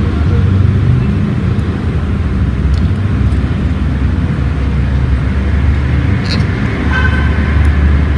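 A steady low rumble of background noise. About seven seconds in, a brief higher tone sounds over it.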